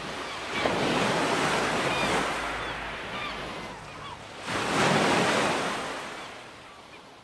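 Sea surf breaking and washing over a pebble beach, two surges about four seconds apart, then fading out.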